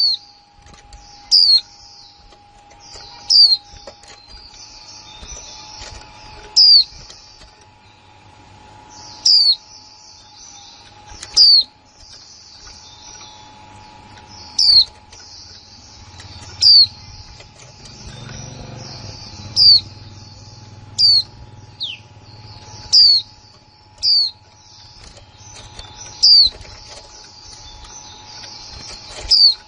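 Female white-eye (khuyên mái) giving its 'kick' call: sharp, high, downward-sliding chip notes repeated roughly every two seconds over soft, continuous twittering. A faint steady hum sits underneath.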